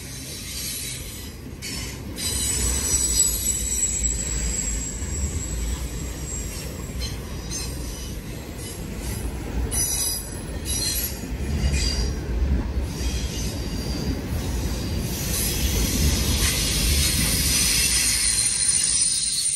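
CN intermodal freight train's cars rolling past with a low rumble, their steel wheels squealing high-pitched on the rail, loudest near the start and again near the end.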